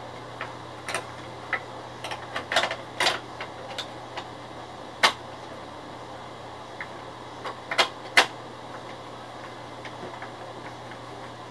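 Irregular clicks and light knocks of hands working the plastic parts of an Epson L1300 printer, with the sharpest clicks about halfway and two-thirds through, over a steady low hum.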